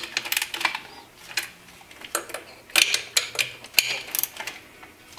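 Hand ratchet clicking in several short runs of sharp clicks as the throttle body bolts, already bottomed out, are given a final eighth of a turn.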